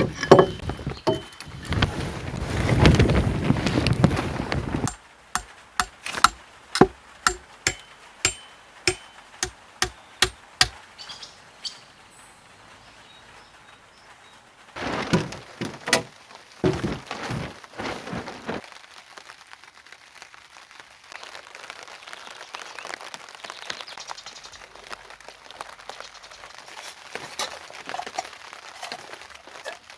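Rustling and handling, then a run of sharp knocks at about two a second, a few more scuffs, and faint steady rain.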